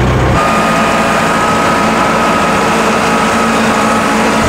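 Cat telehandler's diesel engine running steadily, with a high steady whine over it that sets in about half a second in.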